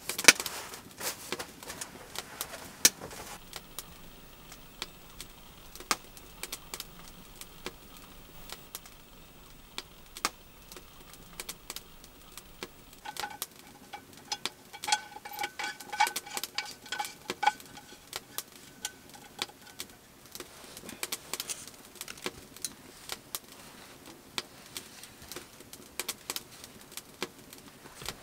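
Scattered clicks, knocks and rustling of bedding and clothing being handled. About halfway through, a black metal frying pan with a wooden handle is handled, giving light metallic clinks and a ringing tone for several seconds.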